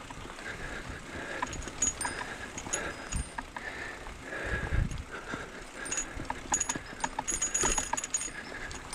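Mountain bike rolling down a grassy dirt trail, its parts rattling and clicking irregularly over the bumps, with low thumps from the tyres hitting the ground.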